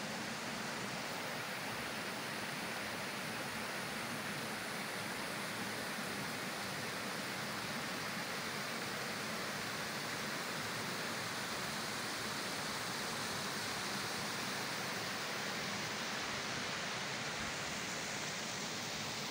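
Steady, even rushing noise of the outdoors, holding the same level throughout with no breaks, gusts or distinct events.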